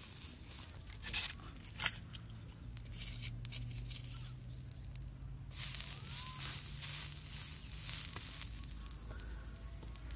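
A spider cooking on a hot stone slab over a fire: scattered crackles and pops at first, then from about halfway a dense, bright sizzling crackle.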